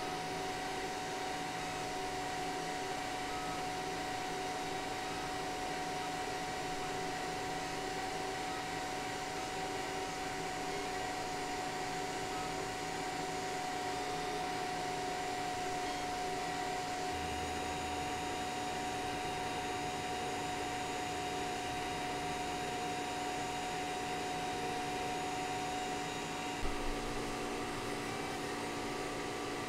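Steady whir of small electric cooling fans on the laser engraver setup, with a constant hum running through. One brief knock comes near the end.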